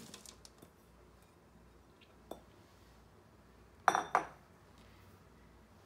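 Kitchenware clinking in a quiet kitchen: a few faint rattles as chopped jaggery settles into a nonstick wok, a small click a little past two seconds, then two sharp ringing clinks of glass or metal about four seconds in.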